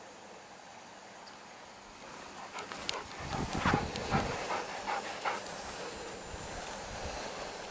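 A dog giving a run of short barks and yips during rough play, starting a little over two seconds in and lasting about three seconds, with a few dull thuds among them.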